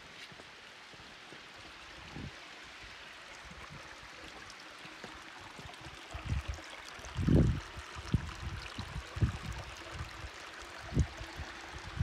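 Creek water trickling over granite rocks into shallow pools, a steady hiss. From about six seconds in, irregular low bumps break in, the loudest about seven seconds in.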